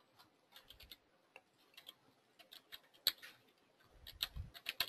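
Computer keyboard being typed on: scattered, faint key clicks, with a louder click about three seconds in and a quicker run of keystrokes near the end.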